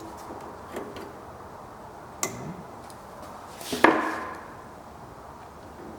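Small metal hardware and hand tools being handled: a few light clicks, then a louder metallic clatter with a brief ring just before four seconds in.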